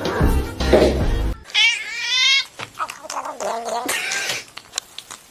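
A cat meowing: one long, wavering meow lasting about a second, then several shorter, quieter cat calls. Background music with a steady bass plays during the first second or so and cuts off abruptly.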